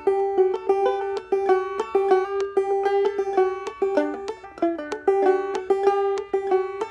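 Five-string banjo played clawhammer style: a steady run of plucked, ringing notes with the left hand fretting chords up the neck, one note recurring over and over through the pattern.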